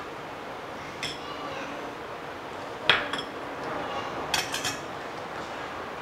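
Spoon scraping and clinking against the pan and serving bowl as curry is ladled out: one clink about a second in, the loudest near the middle, and a quick run of three or four clinks a little later.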